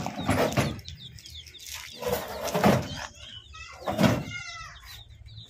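Chickens clucking, with three loud noisy bursts about two seconds apart over a faint steady low hum.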